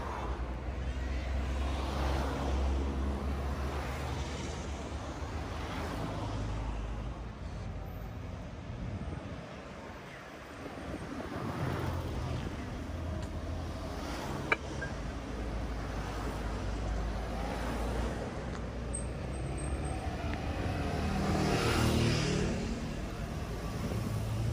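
Road traffic: cars and motor scooters driving past, a steady low rumble that swells as each vehicle goes by. One sharp click about halfway through.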